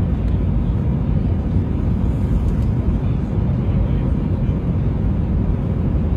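Passenger aircraft cabin noise on approach to landing: a steady low rumble of engines and rushing air heard from inside the cabin, with a faint steady hum above it.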